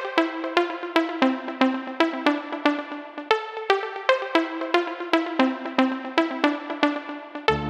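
Electronic music: a breakdown of repeating pitched synth notes, about three a second, with no bass. The bass and beat come back near the end.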